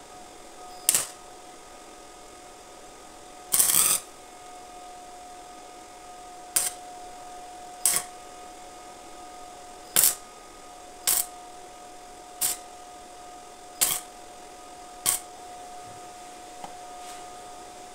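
Electric arc welder striking a series of short tack welds to join two bicycle frames: about nine brief crackling bursts a second or two apart, each lasting well under a second, with a longer one about three and a half seconds in.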